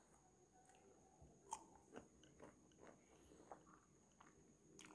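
Faint crunching and mouth clicks of someone chewing crisp, unripe green mango, with a few sharper crunches, the clearest about a second and a half in and near the end.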